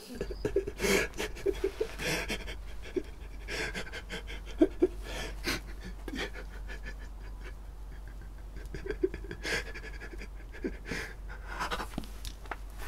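A man breathing hard and raggedly, the breaths coming in irregular gasps with brief catches in his voice, over a steady low hum.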